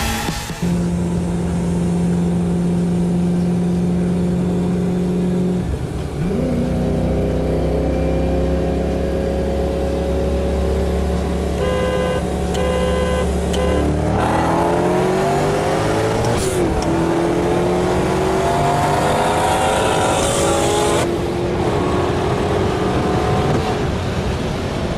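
Sports car engine heard from inside the cabin, cruising steadily and then, a little past halfway, going to full throttle for a roll race, its note rising through the gears with two upshifts. A quick run of electronic beeps sounds just before the pull.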